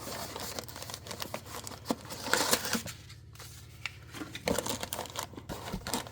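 Flaps of a cardboard shipping box being pulled open and the contents handled: crinkling, rustling and scraping in irregular bursts, with a short lull about three seconds in.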